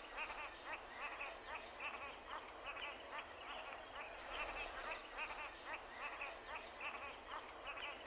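Faint, steady chorus of frogs at a weedy pond: many short calls repeating and overlapping, several a second.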